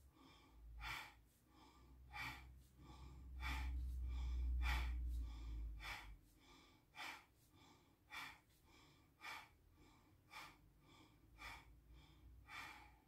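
Rapid bhastrika breathing: about eleven forceful breaths through the nose, a little more than a second apart, with softer breaths between them. A low rumble sits underneath from about three to six seconds in.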